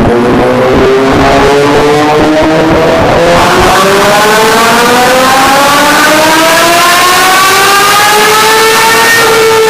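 Honda CBR1000RR-R SP's inline-four engine running hard on a dynamometer, very loud: the revs sag a little, then climb steadily for about six seconds before dipping slightly near the end.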